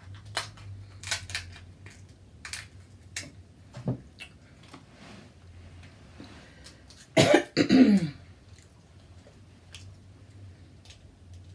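Scattered sharp clicks and snaps of snow crab shell being broken open while eating, then a loud cough in two bursts about seven seconds in.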